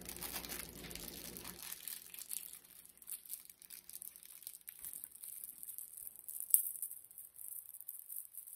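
Crinkling and tearing of a peanut butter cup's wrapper being worked open by hand, with scattered small crackles and one sharper click about two-thirds of the way through.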